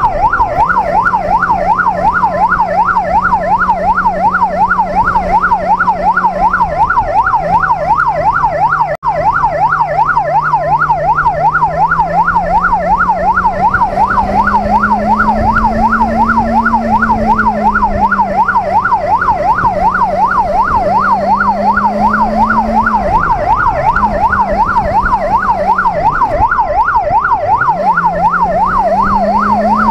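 Police motorcycle's electronic siren sounding a rapid, continuous yelp that sweeps quickly up and down. Under it the Benelli QJ 600cc inline-four engine runs, its pitch rising and falling with the throttle and dropping sharply several times in the second half as the rider shuts off. The sound cuts out for an instant about nine seconds in.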